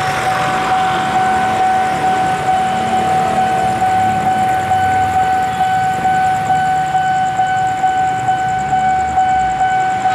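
Railway level-crossing warning alarm sounding continuously as a train approaches: a steady, loud electronic tone with a fast, even pulse. A low rumble runs underneath.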